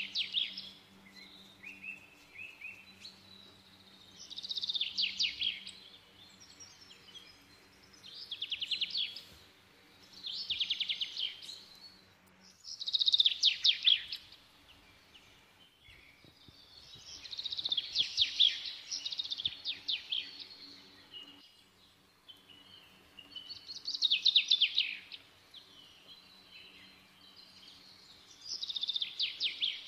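A bird singing in short bursts of rapid, trilled high notes, each about a second long and repeating every three to four seconds.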